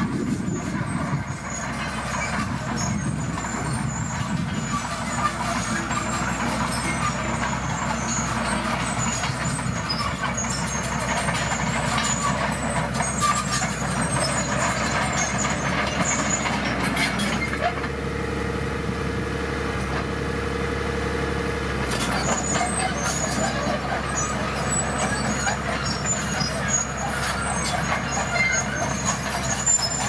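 Komatsu D41PX crawler bulldozer's diesel engine running steadily as the blade pushes a pile of crushed stone and soil, with scattered knocks and clanks from the machine.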